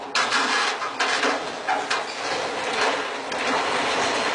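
A truck-mounted crane overturning under the weight of a lifted fishing boat: a run of loud, irregular metal crashes and bangs as the crane topples and the boat drops into the water.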